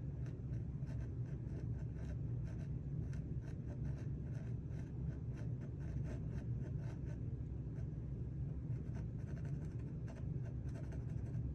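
Mechanical pencil scratching across a drawing panel in many short, quick shading strokes, with a brief lull about eight seconds in, over a steady low background hum.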